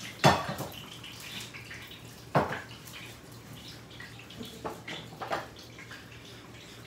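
Kitchen utensils and dishes knocking against a counter: two sharp clunks, one just after the start and one about two seconds in, then three lighter knocks later on, over a faint steady hiss.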